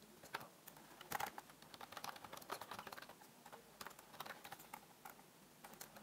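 Faint computer keyboard typing: a run of irregular key clicks as a short command is typed, busiest in the first half.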